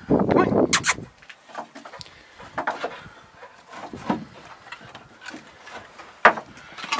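Split firewood logs knocking and scraping against each other as a German Shepherd puppy scrambles over a woodpile. There is a dense clatter in the first second, then scattered knocks and a sharp knock near the end.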